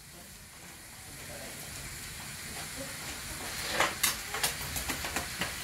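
Chicken pieces sizzling in oil in a wok over sautéed garlic, onion and ginger: a steady hiss that slowly grows louder, with a few sharp crackles in the last two seconds.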